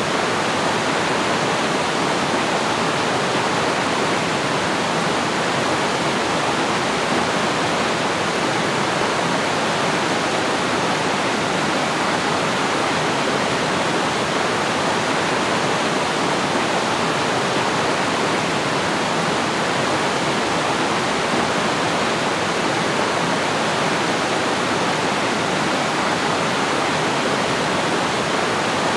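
A rocky mountain stream rushing over boulders: a steady, unbroken rush of water.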